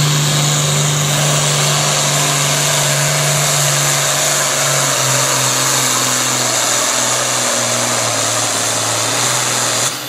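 International farm tractor's diesel engine running flat out under heavy load while pulling a weight-transfer sled. The engine note drops about halfway through as it lugs down under the load.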